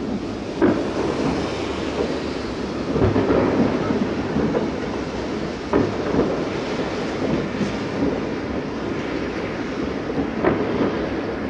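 Distant fireworks salute: a continuous rolling rumble of overlapping booms, with several sharper bangs standing out, the clearest about a second, three, six and ten and a half seconds in.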